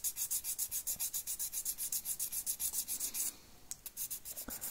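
Fine 2000-grit wet-and-dry abrasive paper rubbed in quick back-and-forth strokes over a small brass pickup contact of a model locomotive, rasping evenly, and stopping about three seconds in. It is sanding the tarnish off the brass so the contact picks up power cleanly.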